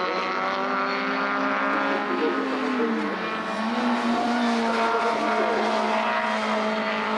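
Škoda Favorit 1300 touring race car's four-cylinder engine running hard on track, with other cars' engines in the mix. The engine note dips about three seconds in, then climbs again as it drives out of the corner.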